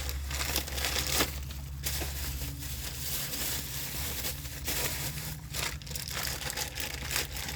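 Packaging crinkling and rustling in irregular bursts as a new idler pulley is handled and unwrapped, over a steady low hum.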